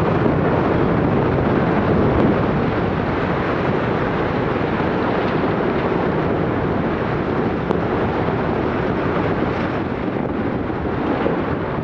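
Concrete cooling tower collapsing after a demolition blast: a continuous loud rumble that slowly eases off.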